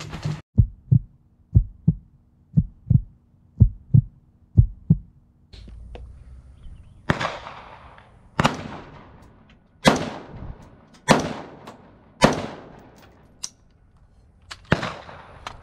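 Springfield Armory Saint Victor AR-15 rifle firing single shots: six sharp reports about one to one and a half seconds apart in the second half, each ringing out, with small clicks between them. Before that, a quick run of muffled low thumps, about two a second.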